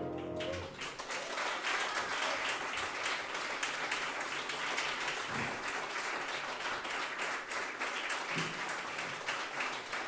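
A final chord on a Petrof grand piano rings briefly and is cut off under a second in, then an audience applauds steadily.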